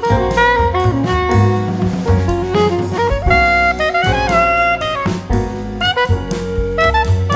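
Background music: an upbeat jazz tune with saxophone lead and drum kit.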